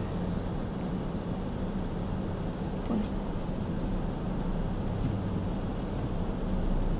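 Street traffic noise with a steady low engine hum underneath.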